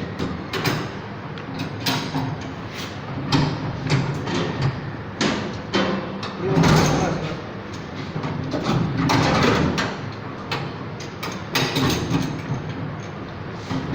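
Irregular knocks, clanks and scraping of metal switchgear hardware being handled and slid, loudest around the middle.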